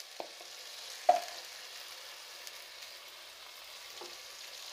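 Marinated goat liver sizzling in hot mustard oil with onion and tomato in a kadai as it is stirred, with one sharp knock of the utensil against the pan about a second in.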